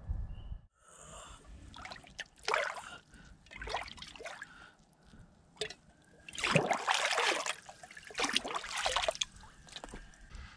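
Water sloshing and splashing in a shallow pool as a pot is dipped and moved in it, in several separate bouts, the longest and loudest in the second half.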